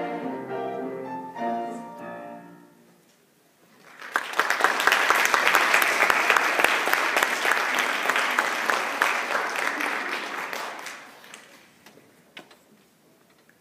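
A children's choir with piano sings the last notes of a song, which fade out about three seconds in. After a brief silence the audience applauds for about seven seconds, then the clapping dies away.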